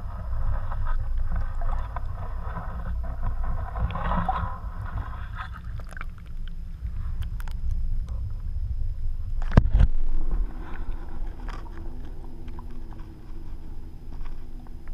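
Muffled underwater water noise heard through a camera's waterproof housing: a steady low rumble, with a hiss over it in the first half. A single sharp knock about nine and a half seconds in.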